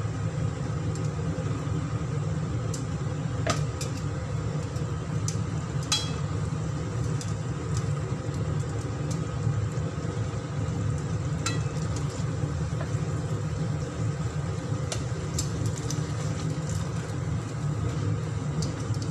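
Metal tongs clicking against a pan as lettuce is turned in boiling water, over a steady low rumble from the stove.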